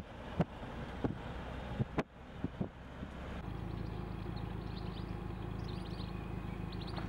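Vehicle noise heard from inside a moving car, with several sharp knocks and bumps; about three and a half seconds in it changes abruptly to a steady low rumble with a few faint, short high chirps.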